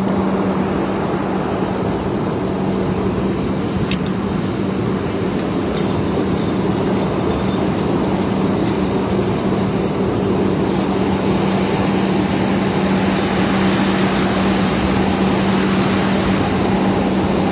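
Engine running steadily with a constant low hum, with one brief click about four seconds in.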